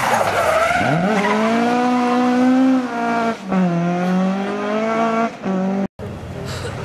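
Mk2 Ford Escort rally car at full throttle: its engine note drops as it passes, then climbs as it accelerates away, with sharp upshifts about halfway through and again near the end, before the sound cuts off abruptly.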